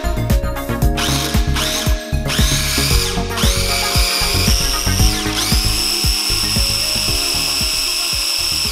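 Food processor motor pulsed in several short bursts, each spinning up in pitch, then run in one long steady whine, chopping avocado chunks down to a smooth purée.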